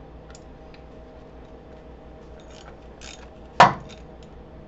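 A few light ratchet clicks as a wrench torques a bolt into a Harley Dyna's aluminum inner primary case. About three and a half seconds in comes a single loud, sharp pop with a short ring: the 5/16-18 bolt's threads stripping out of the case as the misaligned primary shifts.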